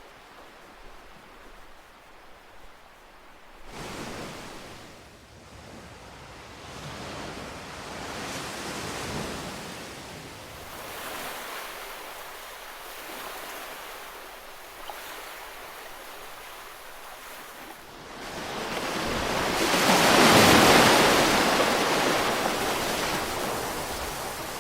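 Ocean waves breaking on a shore, the surf swelling and ebbing in slow surges; the biggest wave breaks about 20 seconds in and washes out slowly.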